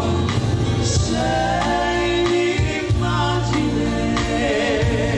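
Live band music with a steady beat, with held sung notes from the duet singers.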